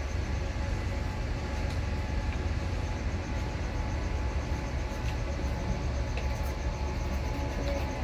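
Steady low rumbling background noise with no clear events, heaviest in the low end.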